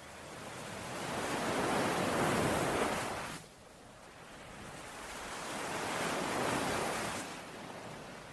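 Ocean waves washing in on a shore: two surges of surf, the first building and breaking off sharply about three and a half seconds in, the second swelling and fading away near the end.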